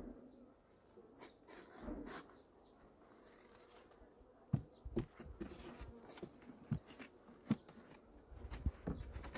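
Wooden hive frames and a metal hive tool knocking and scraping against a wooden hive box as a brood frame is set in and the frames are pushed together. There is a handful of sharp knocks in the second half, with honeybees buzzing faintly, growing louder near the end.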